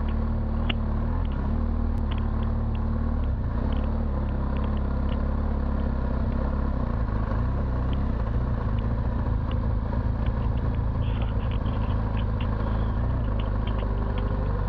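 Boxer-twin engine of a BMW R1200 GS Adventure running steadily at trail speed, its pitch wavering slightly, under a continuous rumble of wind and tyre noise. Scattered light ticks are heard throughout.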